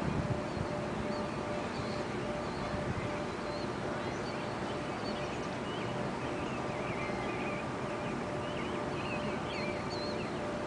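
Outdoor ambience with a steady hum and an even background noise, and faint small bird chirps scattered throughout; the tornado siren does not sound.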